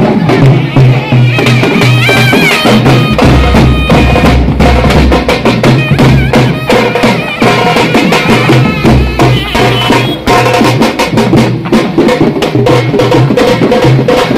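Loud traditional festival music: fast, dense drumming with a melody that slides in pitch above it over a steady deep bass.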